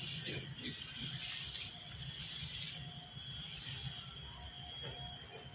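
Steady low hum under a steady high hiss, with a few faint short clicks.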